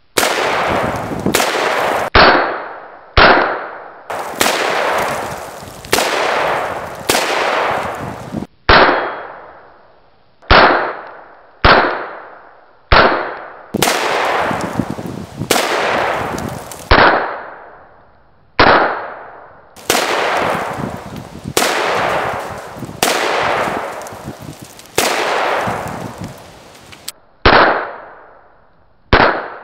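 Smith & Wesson Model 29 .44 Magnum revolver firing about two dozen shots, mostly one to two seconds apart with a few longer gaps. Each shot is a sharp crack followed by a ringing echo that dies away over about a second.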